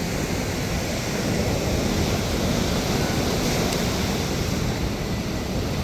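Ocean surf washing ashore in a steady rush, with wind noise on the microphone.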